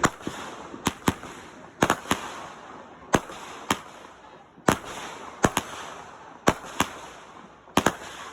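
Consumer fireworks going off: a steady run of sharp bangs, often in close pairs, roughly two a second, with a crackling hiss between them.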